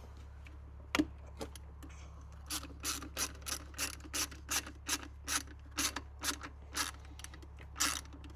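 Hand ratchet clicking in quick, even strokes, about three a second, as a fastener on the intake is tightened, after a single sharper click about a second in.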